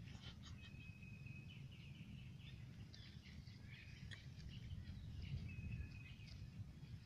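Faint bird calls: scattered chirps and two short held whistle notes, over a low steady rumble, with a few light clicks.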